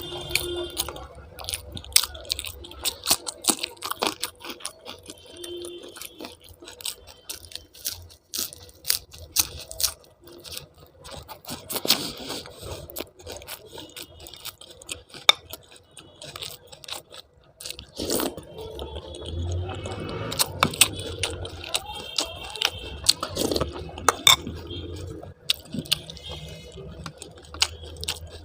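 Close-up eating sounds: chewing and crunching with many small clicks, clinks and scrapes of dishes and utensils.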